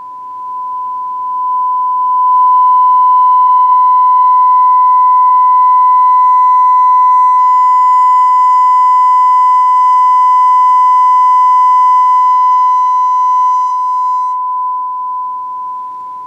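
A steady 1 kHz sine-wave test tone from a CD-player test disc, played through the Denon DRA-F109DAB hi-fi's speakers. It swells as the volume is turned up over the first couple of seconds and holds loud, with faint higher overtones at its loudest. It then falls back in steps near the end as the volume is turned down.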